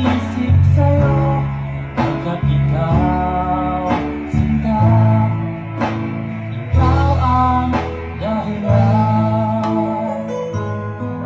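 A song with singing and guitar played loud through speakers under test, with a heavy, prominent bass line. The speakers are a CV 15-inch and a Midhi 12S8.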